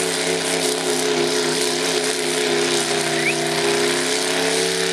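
Mud-bogging pickup's engine running hard at steady high revs while the truck sits bogged in the mud pit. The pitch sags slightly midway and recovers near the end, over a rushing noise.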